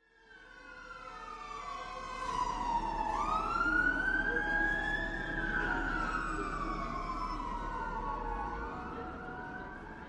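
A siren wailing in slow sweeps, its pitch sliding down and up over several seconds at a time, fading in over the first few seconds.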